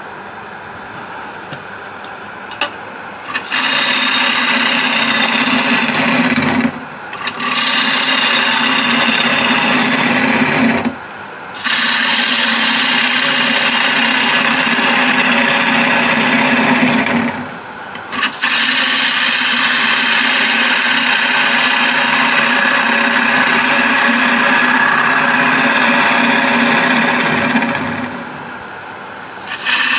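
A gouge cutting the inside of a spinning acacia bowl on a wood lathe: a steady, rough scraping hiss of shavings coming off. After a few seconds of the lathe running alone, it comes in long passes, broken by four short pauses where the tool comes off the wood.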